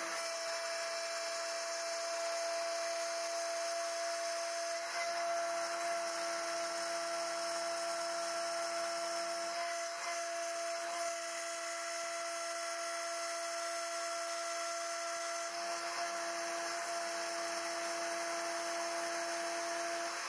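CNC-Step High-Z router milling a brass plate with a small end mill: the spindle runs at high speed with a steady high-pitched whine and cutting hiss. The tone shifts slightly a few times as the cut moves along.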